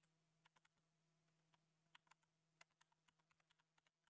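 Very faint computer keyboard typing: scattered, irregular key clicks over near silence and a faint steady hum.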